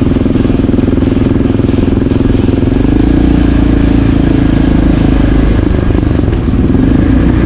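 Motorcycle engine running steadily while riding, its note stepping up in pitch about three seconds in.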